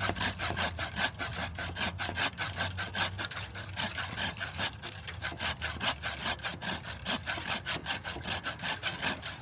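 Manual pole saw cutting through a tree branch in quick, even back-and-forth strokes, about four to five a second: the top cut of a three-cut pruning method, made to take the weight off the branch.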